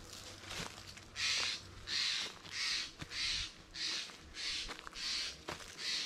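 Hiker's footsteps crunching on a trail at a steady walking pace, about one and a half steps a second, starting about a second in.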